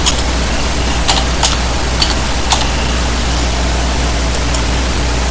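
Steady hiss and low mains hum of the recording, with a handful of short, light clicks in the first half from the speaker handling things while he looks up a Bible passage.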